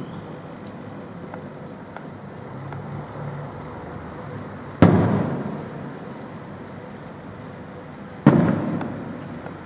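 Aerial firework shells bursting: two loud booms, about five seconds in and again a little after eight seconds, each trailing off in a long echoing tail, with faint crackling in between.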